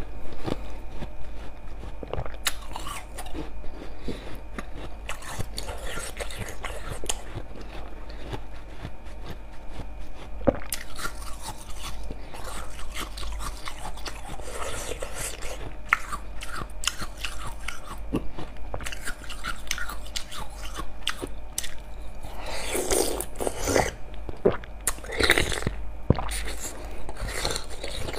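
Slushy ice frozen in a water bottle being bitten and chewed: repeated crisp crunches and crackling as chunks of ice break between the teeth.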